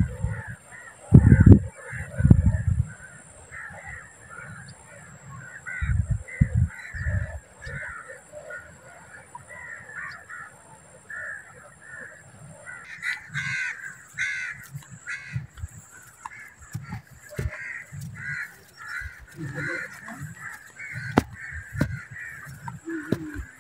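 A flock of birds calling over and over, a dense chatter of harsh caw-like calls. A few loud low thumps on the microphone come near the start, and short knocks and clicks join in during the second half.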